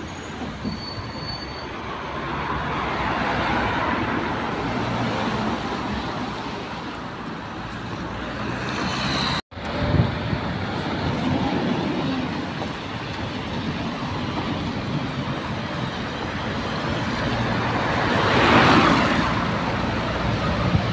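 Road traffic on a wet road, with heavy lorries driving past and a steady tyre and engine noise. A tipper lorry passes close by near the end, the loudest moment. About halfway the sound cuts out for an instant.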